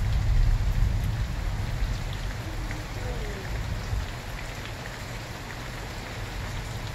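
Steady rain falling with scattered drips, and a low rumble of thunder that swells at the start and dies away over about four seconds.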